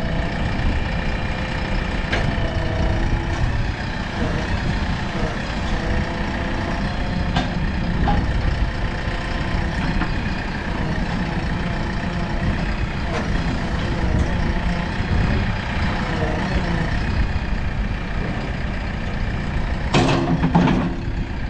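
Diesel engine of a JCB 3DX backhoe loader running steadily, with a brief louder sound near the end.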